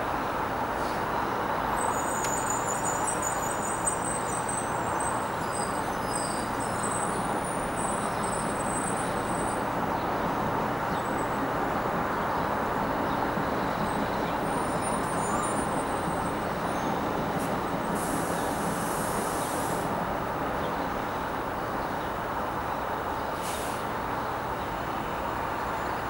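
Steady wash of city road traffic, with faint high squeals in the first ten seconds and a short burst of hiss about eighteen seconds in.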